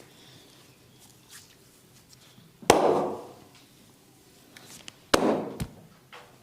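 Two loud, sharp smacks on the body from a barber's massage, about two and a half seconds apart, each with a short fading tail. Faint rubbing and small clicks of the hands come between them.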